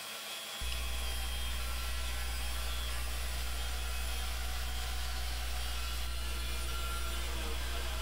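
Bandsaw running with a steady whir and low hum while its blade resaws a burl slab, held between two boards and fed freehand.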